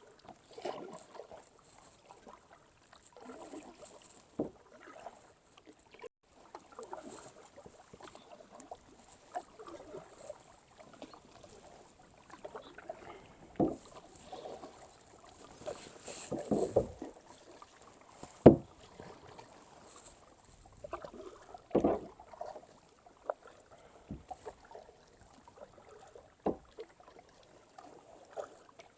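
Kayak paddling: paddle blades dipping and splashing in the water at an uneven pace, with a few sharp knocks now and then.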